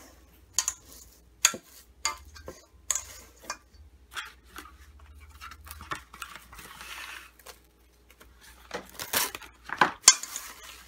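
Plastic cling wrap crackling as it is pulled from its box, torn off and stretched over a stainless steel mixer bowl, with sharp ticks and taps against the bowl's rim. A longer rustling pull comes past the middle, and the loudest crackles come near the end as the wrap is pressed down around the rim.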